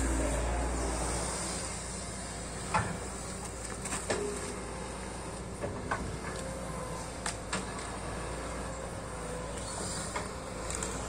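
Sany SY215C hydraulic excavator's diesel engine running under load, louder with a deep rumble in the first second as the arm swings, then settling to a steady drone. Scattered sharp metallic clanks come through it as the bucket and machine work.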